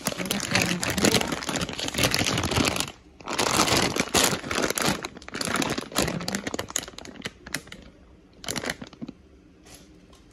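Clear plastic bag of whole dried corn kernels crinkling as it is handled, in three loud bouts of a few seconds each, then dying down, with one short rustle shortly before the end.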